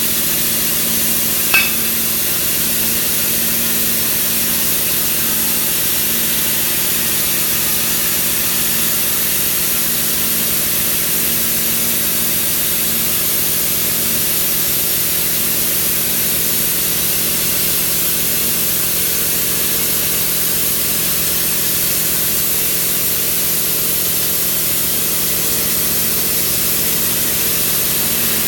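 CNC plasma cutter's torch cutting steel plate: a steady, loud hiss with a low hum underneath. A single sharp click about a second and a half in.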